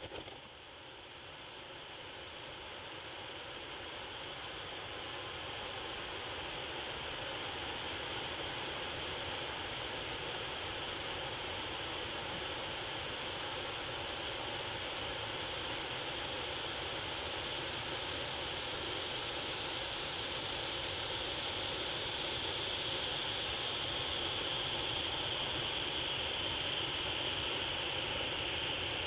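Many silver lance lights burning together on a lancework frame, giving a steady fizzing hiss. It builds slowly over the first few seconds as the lances catch, then holds.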